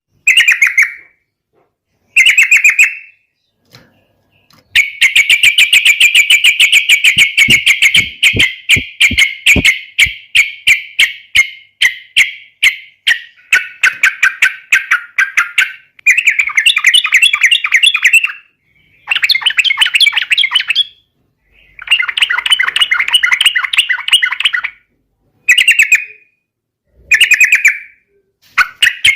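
Yellow-vented bulbul (trucukan) singing loudly in full, energetic song. Short bubbly phrases are split by brief pauses, and one long run of rapid, evenly repeated chattering notes lasts about ten seconds.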